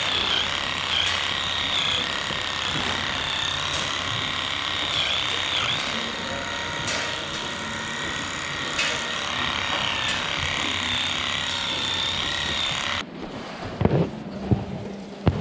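Steady mechanical clatter and rattling of machinery with a high wavering squeal over it. It cuts off abruptly near the end, giving way to quieter, scattered thumps.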